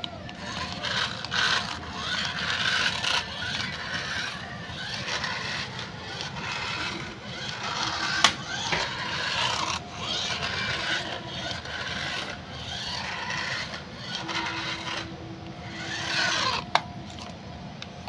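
Small toy remote-control car's electric motor and gears whirring and its wheels scraping on a tiled floor, rising and falling in spurts as it is driven back and forth. Two sharp knocks stand out, one about eight seconds in and one near the end.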